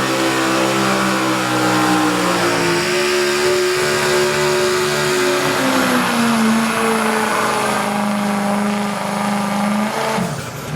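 Pulling truck's engine running hard at high revs under load. Its pitch steps up about two and a half seconds in, then settles lower from about six seconds on, and the sound drops away just before the end.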